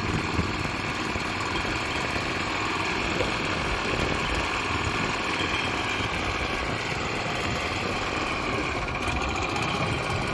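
An engine idling steadily, with no change in speed.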